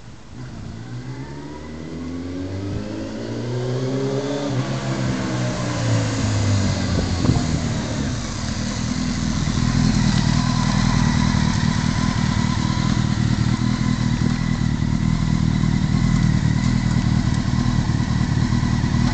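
Honda Fireblade's inline-four engine with its note rising in pitch and getting louder for the first four seconds or so, then falling away. From about nine seconds it idles steadily and loudly, close by.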